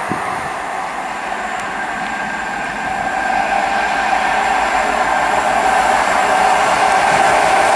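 Class 60 diesel locomotive hauling a train of oil tank wagons along the line, its engine and wheels on the rails growing steadily louder from about three seconds in as it approaches.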